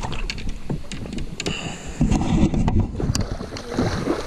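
Water splashing and sloshing in the shallows as a small flathead catfish is landed by hand at the river's edge, with irregular knocks and a louder stretch about two seconds in. Wind rumbles on the microphone.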